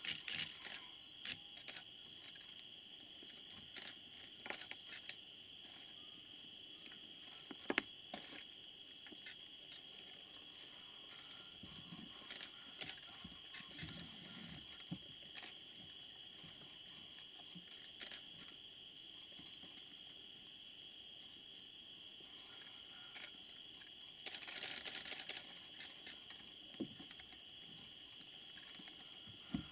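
Night insects trilling steadily at two high pitches, with scattered faint clicks and rustles, one sharper click about eight seconds in.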